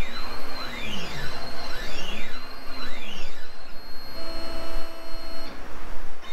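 Stepper motors of a Langmuir Crossfire CNC plasma table driving the gantry and torch head through a dry run with the torch off. The motor whine swoops up and down in pitch about once a second as the head speeds up and slows down along the part's path, then holds a steady pitch for about a second near the end.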